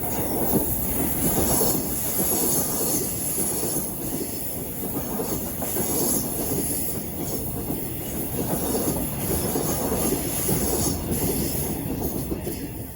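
A train passing close by over a level crossing: wheels running on the rails with a steady rumble and a high hiss, dying away near the end.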